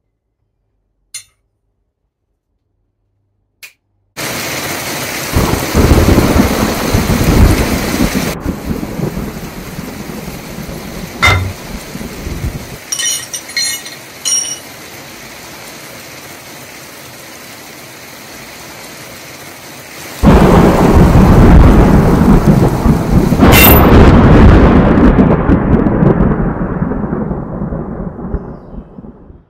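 Thunderstorm sound effect: rain hiss and rolling thunder start suddenly about four seconds in, with a sharp crack near the middle. A second, louder thunderclap breaks about twenty seconds in and rumbles away, fading out at the end.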